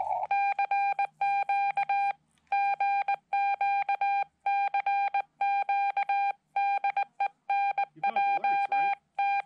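Morse code from a Xiegu X5105 transceiver: a steady mid-pitched sidetone keyed on and off in quick dots and dashes, sent in groups with short pauses, as the operator calls CQ.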